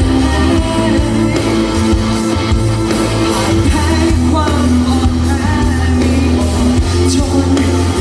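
Band playing a Thai pop song live, with singing over steady bass and drums.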